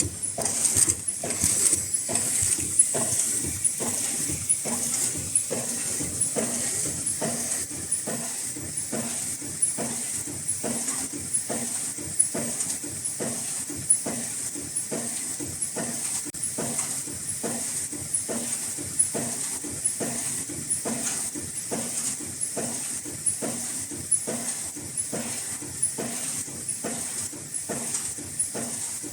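Automatic N95 mask production machine running at speed: a quick, even rhythm of mechanical strokes from its cycling mechanism over a steady high hiss.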